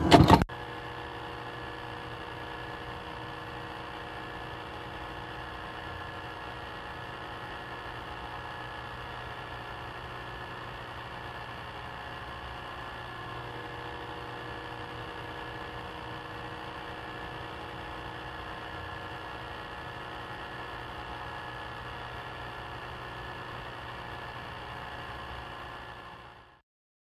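A brief loud burst of static right at the start, then a steady droning hum of several held tones over a hiss, which fades out near the end.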